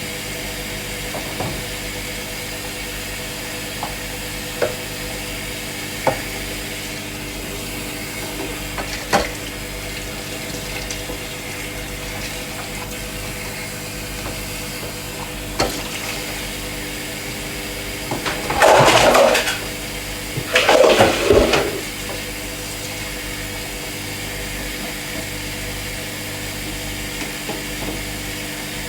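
Dishes being washed by hand at a kitchen sink: a few sharp clinks of crockery, then two short gushes of tap water about two-thirds of the way through, over a steady hum.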